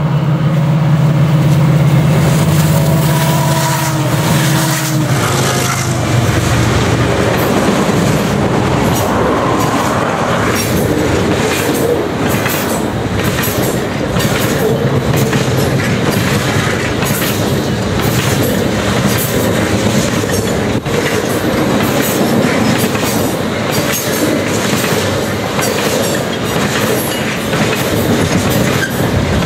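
Canadian National freight train passing close by. The lead diesel locomotive's steady drone drops in pitch and fades as it goes by in the first few seconds. Then a long string of tank cars rolls past with a steady rumble and the clickety-clack of wheels over the rails.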